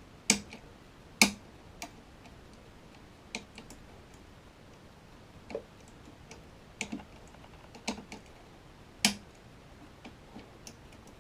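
Scattered sharp metallic clicks and ticks of a lever-lock pick and tension tool working the levers of a Union 5-lever mortice deadlock under heavy tension. Three clicks stand out: one just after the start, one about a second in and one near the end.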